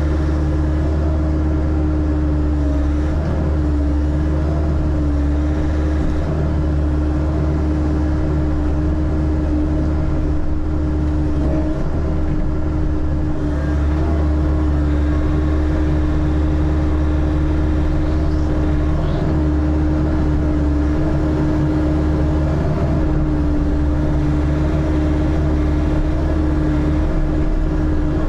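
Engine of a bucket-equipped digging machine running steadily, a constant low drone with a steady hum above it.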